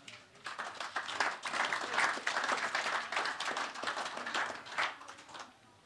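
Audience applauding at the close of a talk: many hands clapping, starting about half a second in and dying away near the end.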